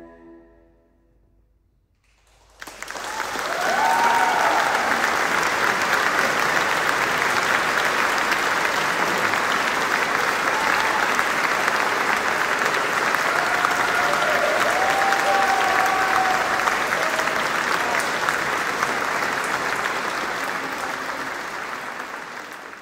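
The last note of the orchestra dies away into about two seconds of hush. Then the audience breaks into steady applause, with a few voices calling out over it, and the applause fades out near the end.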